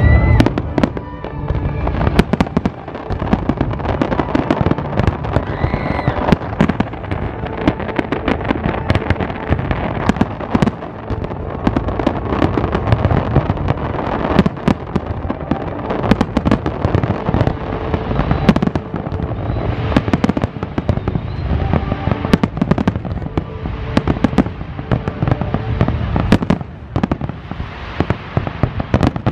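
Aerial fireworks display: a dense, continuous barrage of shell bursts and crackle, many bangs a second.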